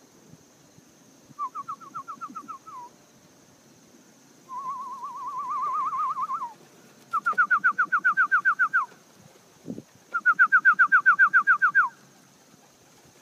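A person whistling a warbling trill, the sort used to call pigeons in: four loud phrases of quick rising chirps, about seven a second, each phrase ending with a short downward slide. A soft thump comes about two-thirds of the way through.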